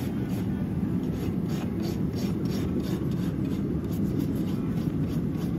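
Farrier's rasp being drawn back and forth in short strokes, about three a second, over a steady low rumble.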